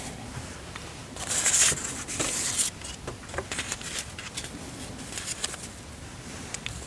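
Paper and sticker sheets rustling as a planner is handled, with light taps and small clicks; the loudest part is two short rustles between about one and three seconds in.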